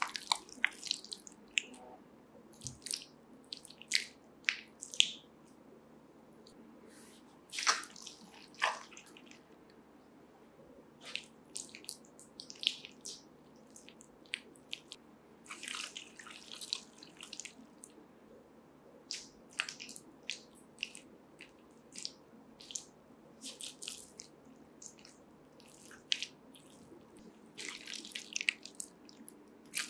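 Soft, wet reclaimed clay squelching under a hand as it is scooped, pressed and spread over plaster batts. The squelches and wet smacks come short and irregular, some in quick clusters.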